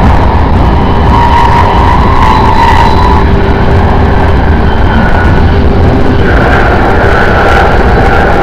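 Steady rumble of an electric passenger train running along the track at speed, heard from on board, with faint whining tones above it.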